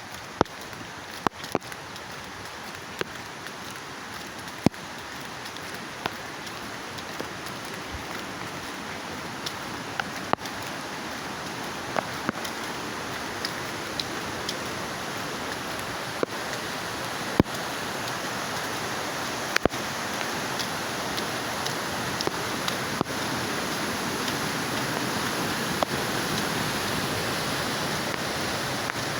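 Steady rain falling, with single drops ticking sharply close by every second or two. The rain slowly grows louder.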